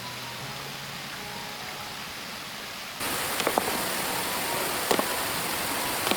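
Steady rush of falling water that jumps sharply louder about halfway through, with a few sharp clicks or taps over it.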